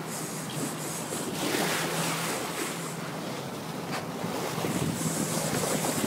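Fishing boat at sea: the engine runs with a steady low hum under the wash of water and wind buffeting the microphone, with one sharp click about four seconds in.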